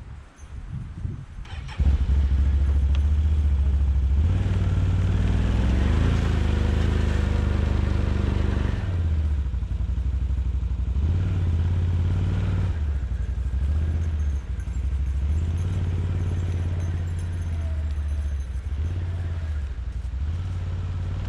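ATV engine running hard, coming in suddenly about two seconds in and then revving up and down over and over as the quad strains to back out through deep, soft snow.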